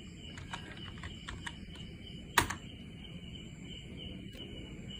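A few scattered clicks from a computer keyboard and mouse, the loudest about two and a half seconds in, over a steady low hum and a steady high-pitched drone.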